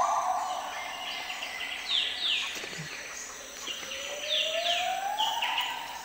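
Wild forest songbirds calling in clusters of quick, high, downward-sweeping chirps, with a long lower whistle that rises and then holds steady about two-thirds of the way through.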